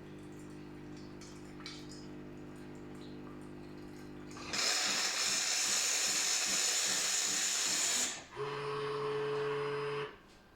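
Nivona NICR 965 coffee machine rinsing its milk system. A steady low machine hum gives way, about four seconds in, to a loud hiss of steam and water forced through the milk line for about three and a half seconds. After a short break comes a second hiss with a steady tone, which stops after about a second and a half.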